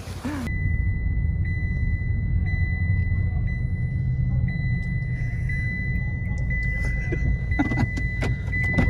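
A motor vehicle's engine running steadily with a low rumble. A thin, steady high-pitched tone with a faint tick about once a second sits above it, and a few sharp knocks come near the end.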